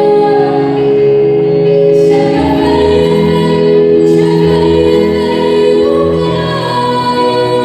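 A woman singing a Mandarin pop song live over musical accompaniment, holding long notes and gliding between them.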